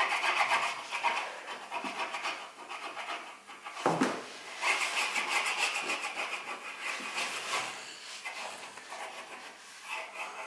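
Wax crayon scribbling on a sheet of paper over a wooden tabletop: quick back-and-forth scratchy strokes. A brief soft bump, the loudest sound, comes about four seconds in.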